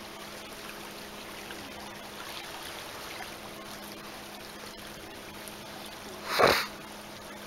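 Shallow sea water trickling softly and steadily along the shore, over a faint steady hum. About six and a half seconds in, a brief loud burst of noise.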